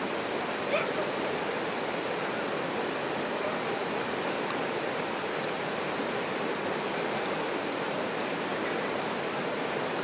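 River rapids rushing over rocks: a steady, even wash of white-water noise, with one short, sharper sound just under a second in.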